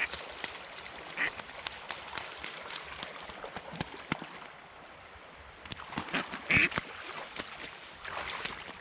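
A duck hooked on a spinning lure quacking and splashing on the water as it is reeled in, with short harsh quacks, the loudest about six and a half seconds in.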